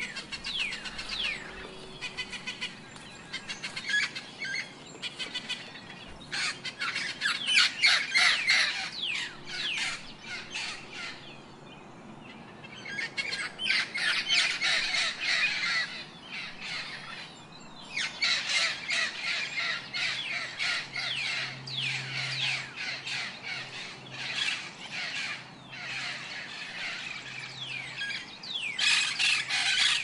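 Parakeets calling in a flock: many overlapping harsh, screechy squawks in bouts of a few seconds, with short lulls between.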